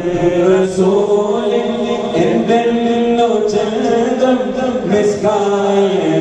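A group of men singing a Malayalam song together into microphones, in a chant-like style with long held notes that glide from pitch to pitch.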